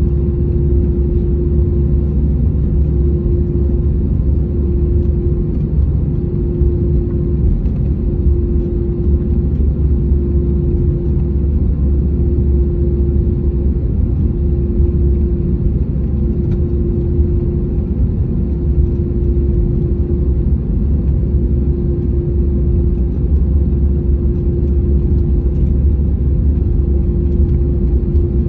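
Steady low rumble inside a jet airliner's cabin as it taxis to the gate, with a steady droning hum over it.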